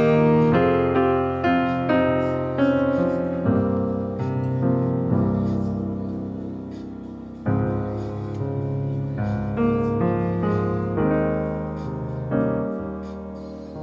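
Background piano music: single notes and chords struck and left to ring, growing softer toward the end.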